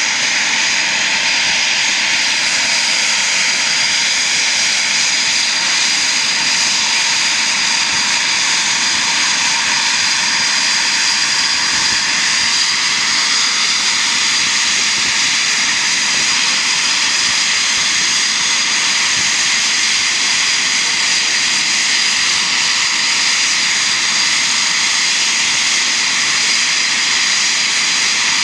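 Eurofighter Typhoon fighter jets' twin EJ200 turbofans running steadily on the ground at low power, a continuous high whine over a jet rush.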